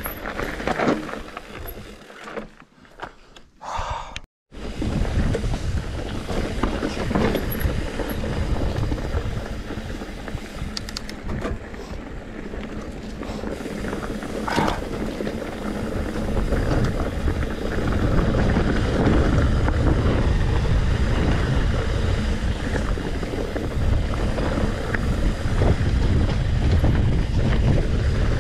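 Wind rumbling on the microphone as a mountain bike rides a dirt single track, with a few sharp clicks from the bike. It drops almost to nothing about four seconds in, then the rumble builds heavier toward the end as the bike picks up speed.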